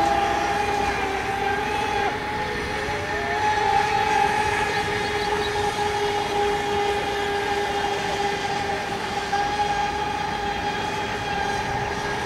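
Radio-controlled racing boats running flat out, their motors making a steady high-pitched drone that dips briefly in pitch now and then.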